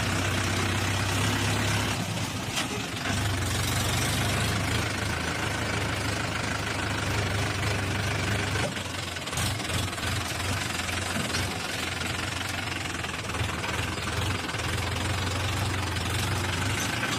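Mahindra Yuvo 575 tractor's four-cylinder diesel engine running steadily under load while hauling a trolley of soil along a dirt track. Its even low drone eases briefly twice, about two seconds in and again around nine seconds.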